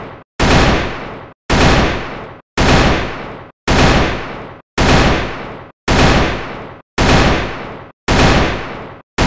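AK-47 gunfire sound effect played over and over, about once a second. Each play starts sharply, rings down over about a second and then cuts off abruptly.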